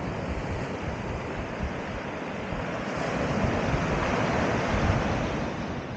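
Sea waves washing onto the shore, the rush swelling to a peak about five seconds in, with wind buffeting the microphone.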